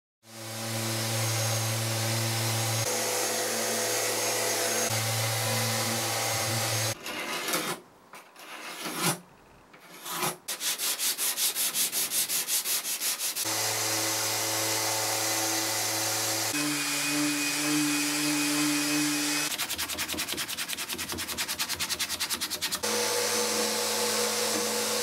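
Festool detail sander running steadily on bare oak, alternating with stretches of fast, even hand sanding with a folded sheet of sandpaper, plus a single sharp knock about nine seconds in.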